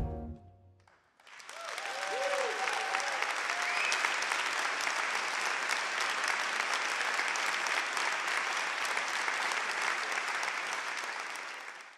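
The big band's final chord dies away, then a concert audience applauds steadily with a few voices cheering. The applause cuts off abruptly at the end.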